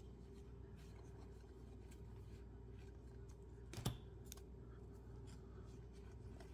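Faint handling of trading cards, the cards flipped one behind another with soft slides and light ticks. There is one sharper click about four seconds in, over a low steady hum.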